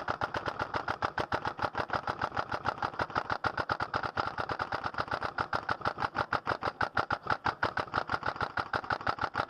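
Airsoft rifles firing rapidly and without pause, a fast steady clatter of shots many times a second that breaks off near the end.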